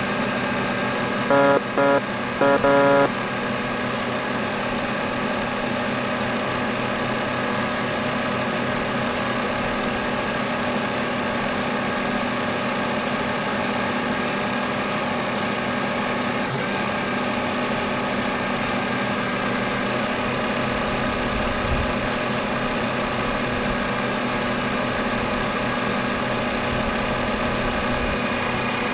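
A steady mechanical hum and whine with several held tones, unchanging throughout. About a second in, four short, loud beeps cut in.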